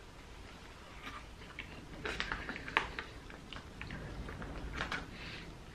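Quiet eating sounds: chewing and a scatter of light clicks and scrapes while a person tastes chicken noodles mixed with beef jerky.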